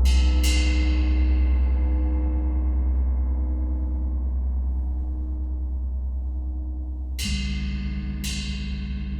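Gong ringing with a deep, slowly fading hum, with two bright metallic strikes right at the start. About seven seconds in a new low tone enters, and bright metallic strikes come regularly, about one a second.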